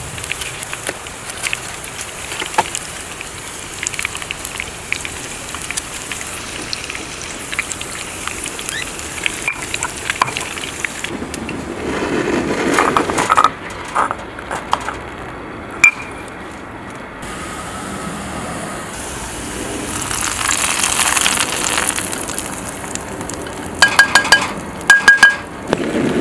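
Sliced onion frying in olive oil in a small pan: a steady sizzle with fine crackles. About halfway through this gives way to a stone pestle mashing and grinding roasted tomatoes in a stone mortar, with scattered knocks and clinks of stone.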